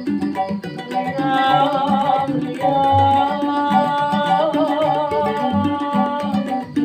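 Keroncong band playing a slow song: plucked strings and a low plucked bass pattern, with a long sustained melody line wavering in vibrato above them, the singer drawing out the line.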